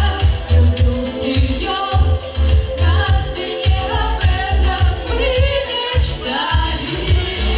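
Two women singing pop vocals live into microphones over recorded backing music with a steady heavy bass beat.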